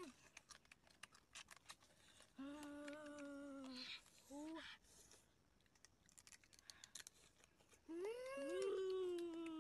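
Boiled crab shells cracking and crunching as they are pulled apart and eaten, with a child humming a closed-mouth "mmm" three times while chewing. The last hum is the longest and loudest, rising then falling near the end.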